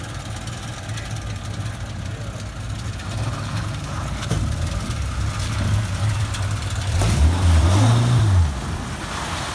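Four-wheel-drive vehicle engine running steadily, then revving up and back down about seven seconds in.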